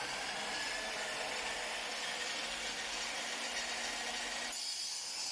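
Small power saw running with a steady whine as it cuts mesquite firewood logs; the sound cuts off abruptly about four and a half seconds in.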